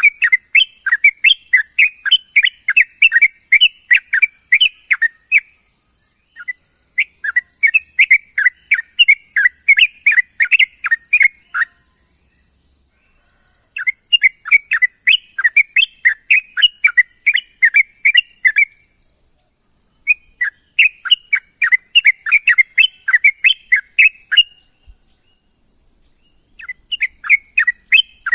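A yellow-vented bulbul (trucuk) gives its calling-companions call: quick bubbly chirping phrases about five seconds long, repeated four times with short pauses between them, and a fifth phrase starting near the end. A steady high hiss runs underneath.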